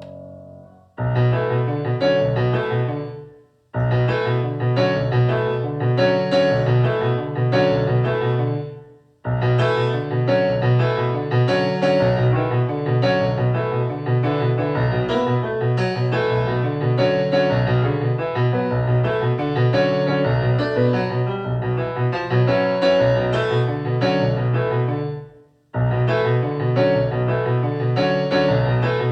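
Band music led by a keyboard, with a steady low beat, starting about a second in after a held chord. It stops dead three times for a moment and comes straight back in.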